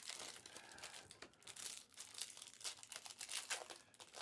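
Faint, irregular crinkling and tearing of trading-card pack wrappers being ripped open and handled.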